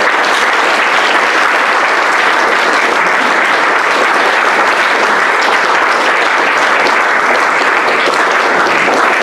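An audience applauding at the end of a lecture: sustained, steady clapping from many people.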